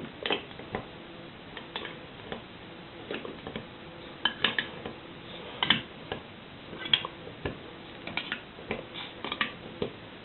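Hand-held lever can opener cutting around the seamed tin lid of a glass jar: irregular metallic clicks and scrapes, some with a short bright ring, as the blade is worked forward stroke by stroke.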